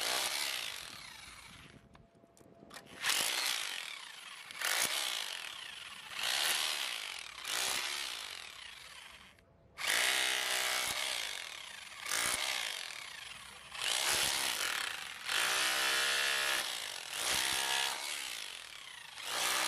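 Teeno SDS-Plus rotary hammer (3 J) in hammer-only mode, driving a flat chisel into a concrete block and chipping it away. It runs in bursts of one to two seconds with short pauses, stopping briefly about two seconds in and again just before ten seconds in.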